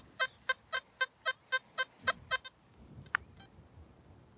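XP metal detector with an HF search coil beeping a rapid, even run of short pitched tones, about four a second: its target signal over a tiny coin buried about 5 inches deep. The beeping stops about two and a half seconds in, and a single sharp click follows.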